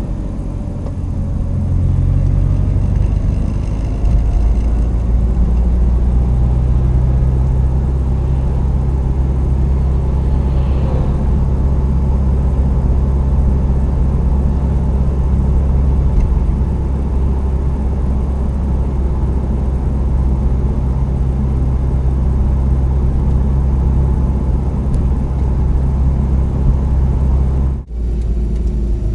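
Subaru WRX STI driving, with a steady low engine and road rumble heard from inside the car. The sound drops out briefly near the end.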